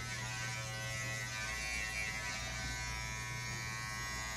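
Electric hair clippers running with a steady buzz during a home haircut.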